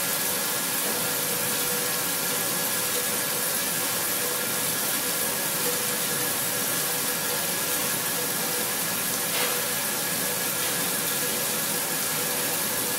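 A CNC milling machine full-slotting P20 steel, about 35 HRC, with a 3/8-inch four-flute AlTiN rougher-finisher end mill at about 1,477 rpm, under flood coolant. The cut makes a steady hissing noise with constant tones running through it.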